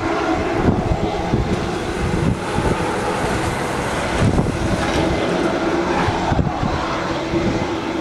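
Steady machine hum from aircraft ground equipment running beside a parked Boeing 747 freighter, with wind rumbling on the microphone.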